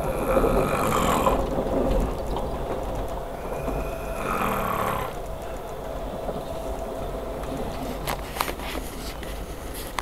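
A sleeping man snoring loud, two long snores about four seconds apart, over the steady low rumble of a moving passenger train. A few sharp clicks come near the end.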